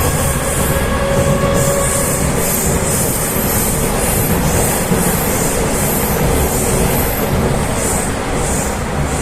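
Rusich metro train running between stations, heard from inside the car: a steady rumble of wheels on the rails, with a faint whine that fades out about a second and a half in.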